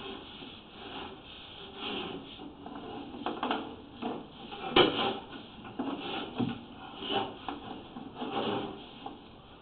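Sewer inspection camera's push cable being pulled back out of a cast iron sewer line by hand. It makes irregular rubbing and scraping sounds with scattered knocks; the sharpest knock comes about five seconds in.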